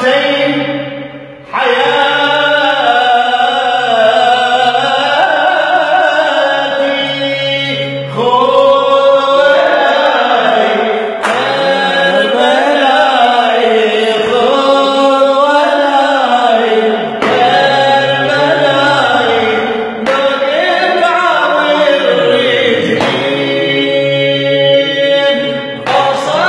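A man singing an Arabic religious qasida unaccompanied, in long held, ornamented phrases, with a brief break about a second in.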